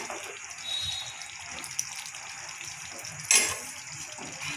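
Thick chickpea curry being ladled from a kadhai into a steel serving bowl with a steel ladle, wet and pouring, with a sharp metal clink of the ladle against the bowl about three seconds in.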